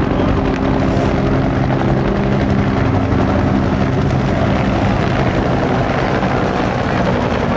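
Bell UH-1 Huey and AH-1 Cobra helicopters flying past, a loud steady rotor and turbine drone with a stack of engine tones that fades a little after the middle.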